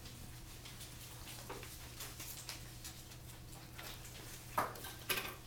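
Quiet classroom ambience: a steady low electrical hum under scattered small clicks and taps, with two sharper knocks near the end.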